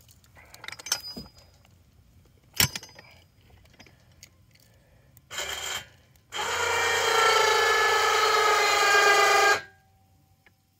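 Electric hoist motor of a homemade firewood-block crane, first a short burst and then running with a steady whine for about three seconds before cutting off. A single sharp knock comes a few seconds earlier.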